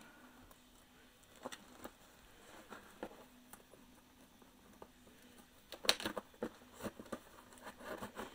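Scattered light taps and scrapes from handling a taped cardboard shipping box, with a cluster of louder knocks about six seconds in.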